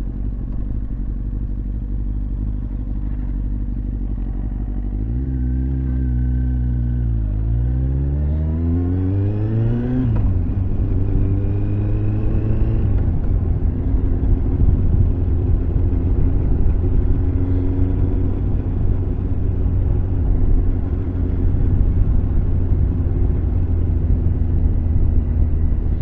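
Motorcycle engine under way over a steady wind rumble. About five seconds in the engine note dips, then climbs steeply as it accelerates, breaks off at a gear change around ten seconds, and climbs again for a few seconds before settling into steady running.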